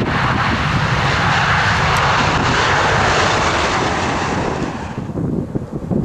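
Jet airliner passing close by, its engines a loud steady rushing noise that swells to a peak in the middle and fades out about five seconds in. Wind rumbles on the microphone underneath.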